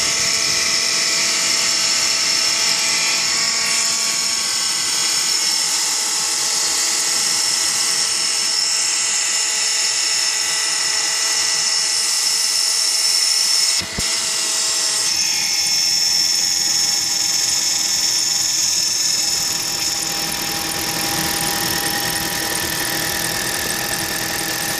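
Kia Rio's engine running with a loud, steady high-pitched whistle from one of the accessory-drive belt pulleys, a sign of a failing pulley or its bearing. The whistle holds one pitch, breaks off for a moment about fourteen seconds in, and goes on with a slightly changed tone near the end.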